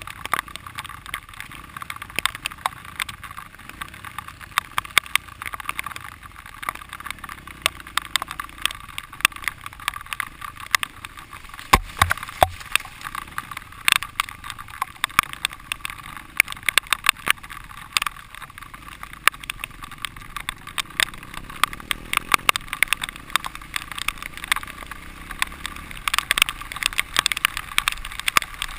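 Dirt bike ridden over a rough, muddy trail, heard from a camera mounted on the rider. A constant clatter of sharp knocks and rattles covers a faint engine note that shifts in pitch now and then.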